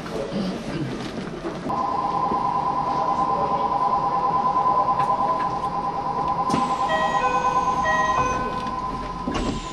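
Station departure bell on the platform: an electronic trilling two-tone ring that starts about two seconds in and sounds steadily for about six seconds, with a few short higher chime notes near its end, signalling that the train is about to leave.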